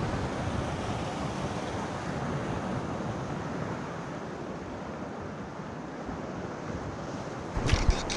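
Steady wash of sea surf breaking on nearby rocks, mixed with wind noise on the microphone. Near the end a loud, crackling rumble hits the microphone in uneven bursts.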